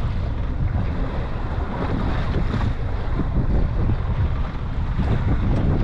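Wind blowing across the microphone, over waves washing against a small boat's hull at sea: a steady noise, heaviest in the low rumble.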